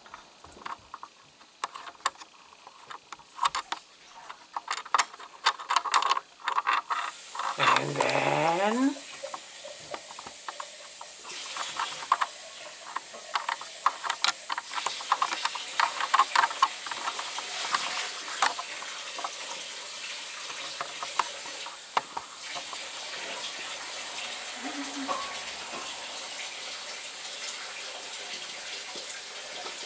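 Dishes and utensils clattering in a kitchen sink. About seven seconds in the tap comes on and runs steadily to the end, with a short rising tone as it starts and more clatter over the running water.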